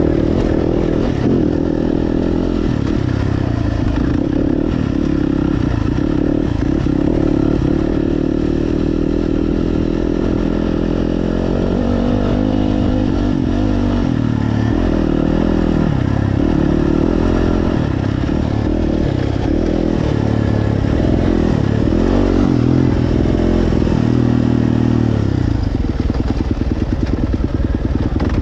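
Dirt bike engine running under the rider, its pitch rising and falling with the throttle over rough ground. About two seconds before the end it drops to low revs with a slow, even pulse as the bike eases off.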